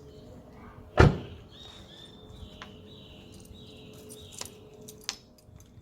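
Front door of a Nissan Tiida swung shut with one heavy thud about a second in, followed later by a couple of light clicks.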